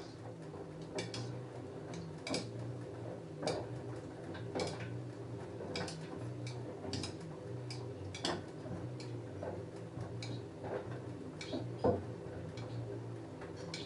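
LG F10A8HDS5 front-loading washing machine tumbling a load of jeans in the wash phase. The motor hum swells and drops every second or so, and irregular sharp clicks and knocks come from the load striking the drum.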